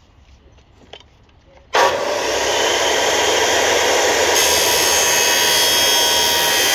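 An electric drop saw (mitre saw) starts up about two seconds in and runs loudly and steadily. About halfway through, its toothed blade comes down into a metal pipe, adding a harsher, higher-pitched cutting noise.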